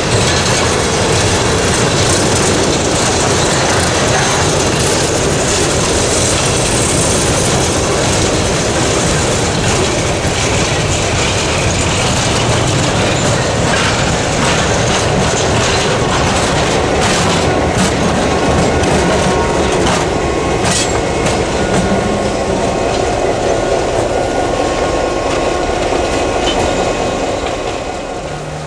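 Freight train rolling past close by: the cars' steel wheels clack and clank over the rail joints, followed by an EMD GP9 diesel locomotive running past. The sound drops away near the end.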